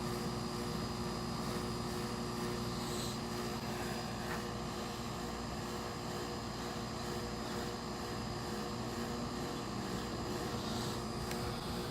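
A steady mechanical drone, like a running fan or blower, holding several constant tones, with a few faint clicks.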